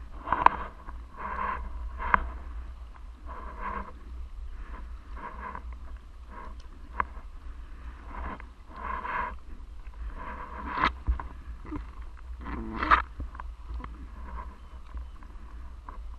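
Stand-up paddle strokes dipping and swishing through the water every second or two, over a steady low wind rumble on the microphone, with a few sharp knocks.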